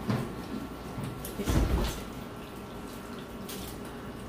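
Kitchen handling noises over a steady background hiss: a short knock at the start and a heavier, low thump about a second and a half in.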